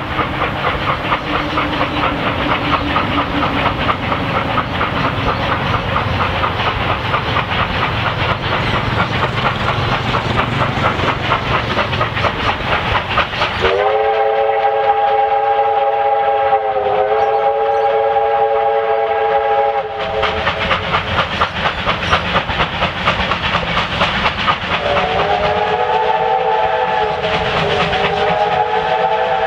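Two R class Hudson steam locomotives working an approaching train, their exhausts giving a rapid, regular chuff. About 14 seconds in a steam whistle sounds a chord of several notes for about six seconds, and a second long whistle begins near the end.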